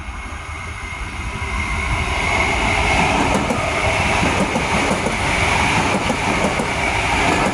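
Passenger train passing close by on the rails: a rumble of wheels and running gear that builds over the first two seconds and then holds loud and steady, with a steady high-pitched tone running through it.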